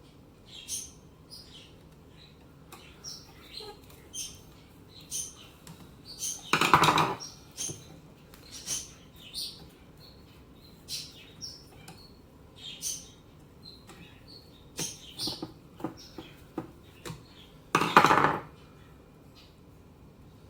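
Irregular clicks and crackling pops, with two louder half-second bursts about seven and eighteen seconds in: static from an Automatic Electric Type 90 telephone as it is connected to a test line.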